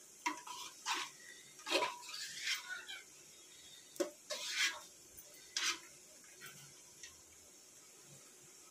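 Metal mesh strainer ladle clinking and scraping against an aluminium cooking pot, about eight or nine separate strokes, with small splashes. It is scooping whole spices out of boiling spiced water.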